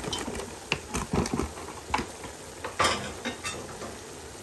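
Seasoned chopped chicken breast sizzling in a pot as sliced raw mushrooms are tipped in and stirred, with irregular knocks and clatters against the pot, the loudest about three seconds in.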